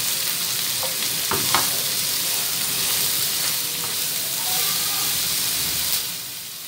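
Julienned vegetables sizzling in hot oil in a granite-coated nonstick wok as they are stir-fried with spices and tossed with a spatula, with a couple of clicks of the spatula against the pan about a second and a half in. Near the end the stirring stops and the sizzle gets quieter.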